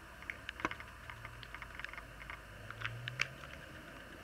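Scattered light clicks and taps from hands handling a clear bowl of slime and the dye, with a sharper click about half a second in and another a little past three seconds, over a faint steady low background hum.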